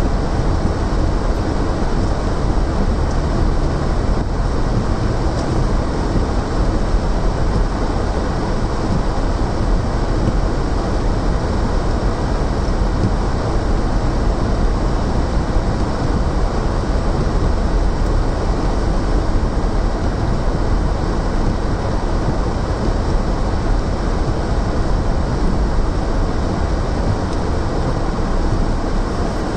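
Steady low rumble of a car driving slowly over snow, heard inside the cabin: engine and tyre noise on a packed-snow surface.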